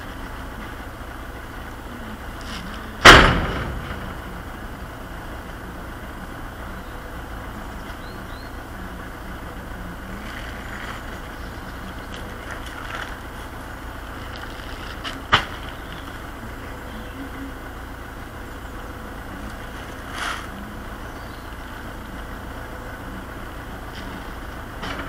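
Steady hum of a vehicle engine idling. A loud single bang with a brief ring comes about three seconds in, then a sharp knock about halfway through and a softer one later.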